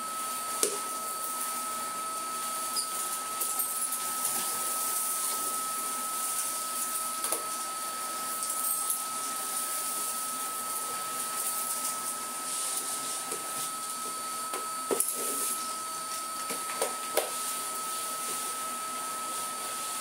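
Cordless Numatic tub vacuum running steadily at full suction, a constant whine over a hiss of rushing air, while its floor tool is pushed over laminate. Scattered sharp clicks and rattles come from debris being sucked up the hose.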